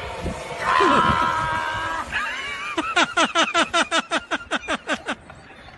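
A person's long, high held cry, then rapid high-pitched laughter, about five short laughs a second, that dies away near the end.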